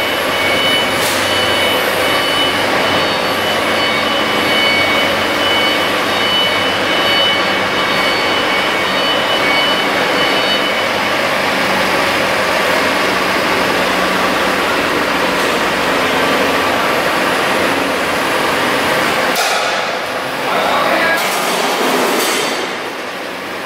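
Steady, loud mechanical running noise from machinery, with a few faint high steady tones in the first half. It dips briefly twice near the end.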